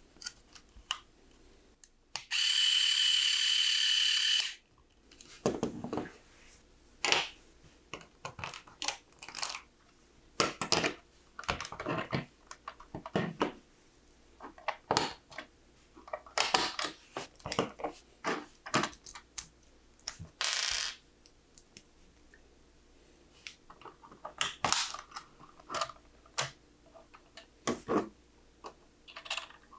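LEGO bricks and Technic parts clicking and clattering as pieces are handled and snapped together. About two seconds in, a loud steady buzzing tone sounds for about two seconds.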